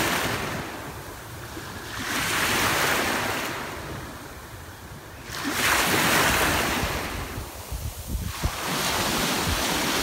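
Small waves of a calm sea washing onto a sandy shore, swelling and fading in a slow rhythm about every three seconds. Wind rumbles low on the microphone underneath.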